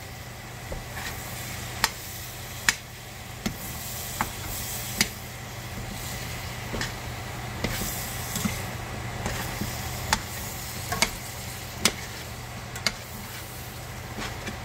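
Stainless steel tongs clicking and knocking against a stainless steel pot as cabbage and bacon are tossed, about a dozen sharp irregular clicks. Under them is a steady sizzle of the cabbage frying on high heat.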